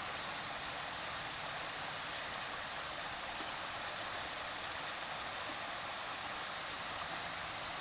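Shallow stream of water flowing steadily: an even, muffled rush with no highs.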